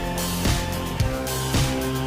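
Background music with a steady beat, about two beats a second, and guitar.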